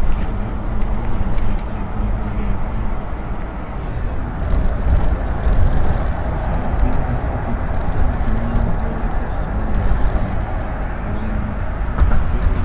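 Steady road noise inside a car's cabin at highway speed: a low rumble of tyres and engine.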